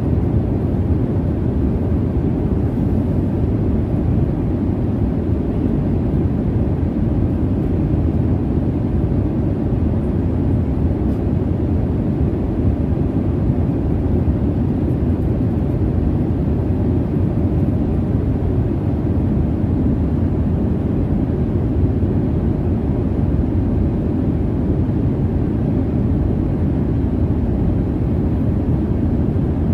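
Steady low jet-engine rumble and air noise inside an airliner cabin in flight, an even, unchanging drone weighted toward the bass.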